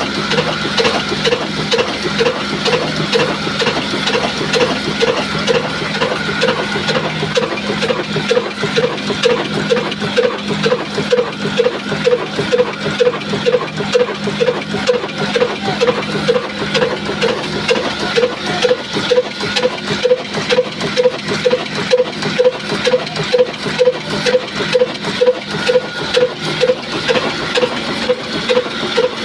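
Old Ruston Hornsby diesel oil engine running steadily while driving a flour mill, with an even beat about twice a second over a constant hum.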